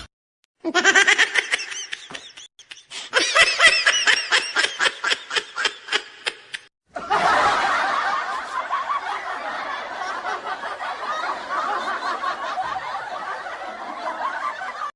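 Laughter: bursts of rapid, pitched laughing with a short break about two and a half seconds in, then from about seven seconds a denser, unbroken stretch of laughter. Each part starts and stops abruptly.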